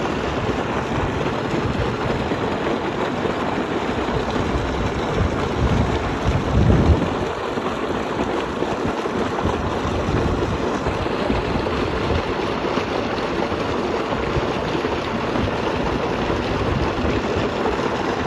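Water gushing and churning into a concrete irrigation tank, a steady rushing noise like heavy rain, with a brief louder low rumble about seven seconds in.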